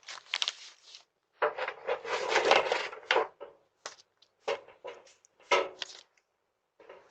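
Irregular scuffing and rustling noises close to the doorbell microphone: short scrapes and a longer rustle of about two seconds near the middle.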